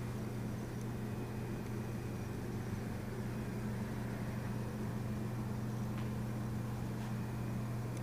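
Steady low electrical or mechanical hum with a faint hiss, the room tone of a quiet room, with one faint click about six seconds in.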